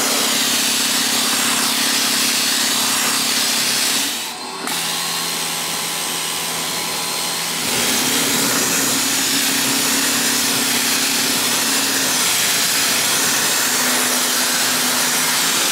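A 1600 psi electric pressure washer running, its water jet hissing against wooden deck stairs over the steady hum of the electric motor and pump. About four seconds in the sound dips, and the hum runs lower for a few seconds before rising back to its first pitch. This fits the machine cycling itself as it runs.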